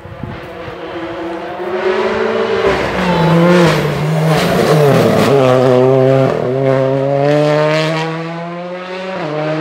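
Rally car engine at full race pace through a hairpin: it grows louder as the car approaches, the pitch drops in steps several times as it slows into the bend, then it revs steadily higher accelerating away, with another shift near the end.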